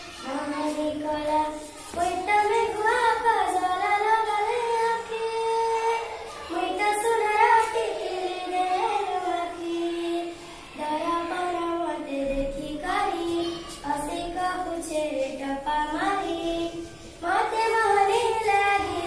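A young girl singing a song solo and unaccompanied, in phrases with short breaths between them and some notes held long.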